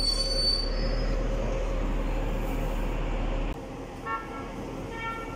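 Airport shuttle bus pulling up, its engine rumbling steadily, with a high-pitched brake squeal that fades out within the first second. The rumble drops away suddenly partway through, and two short pitched beeps follow near the end.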